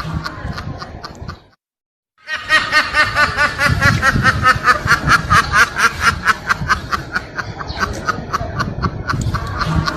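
Meme sound effect of a duck-like snickering laugh: fast, even, pitched cackles. It breaks off for under a second about one and a half seconds in, then comes back loud and keeps going.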